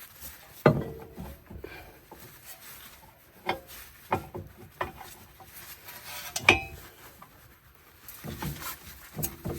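Metal tools and car parts clinking and clanking as they are handled during CV axle work: about six sharp knocks, some with a brief metallic ring, the loudest about a second in and again past six seconds in.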